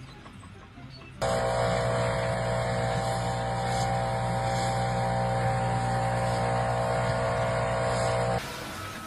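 A machine's motor running steadily with a constant hum, starting abruptly about a second in and cutting off near the end.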